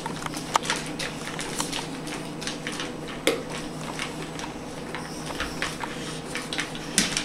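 A Dogue de Bordeaux eating dry kibble from a stainless-steel bowl: irregular crunching and clicks of food and muzzle against the metal bowl, with a burst of louder clicks near the end.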